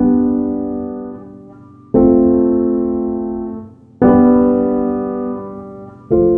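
Slow piano music: a chord struck about every two seconds, each left to ring and fade before the next.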